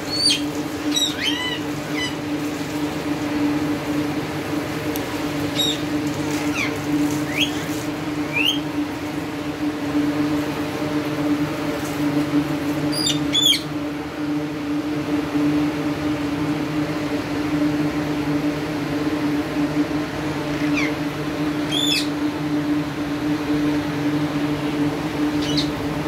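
Alexandrine parakeets giving short, sharp squawks now and then, a dozen or so scattered calls that sweep quickly in pitch, the loudest about halfway through and again near the end. A steady low hum runs underneath.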